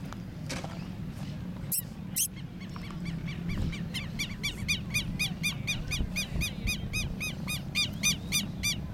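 An animal calling in a fast series of short, high, rising-and-falling notes, about three or four a second, over a steady low rumble. Two sharp clicks about two seconds in.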